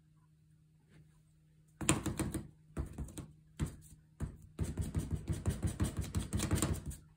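Foam sponge dauber dabbing glue onto a chipboard strip and paper, a quick run of strokes in several bursts starting about two seconds in, the longest near the end.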